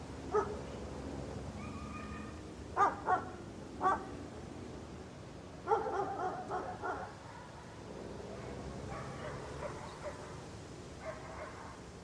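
A dog barking in short bouts over a steady low outdoor background: a single bark, then three spaced barks, then a quick run of several barks about six seconds in, and fainter barks near the end.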